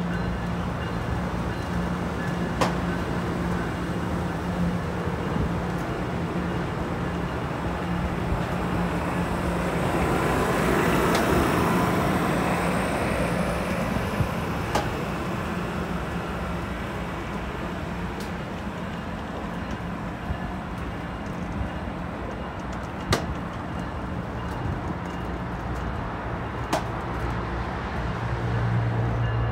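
Amtrak bi-level passenger cars rolling slowly past, a steady rumble and hum with a handful of sharp, irregular clicks from the wheels on the rails. The noise swells for a few seconds partway through.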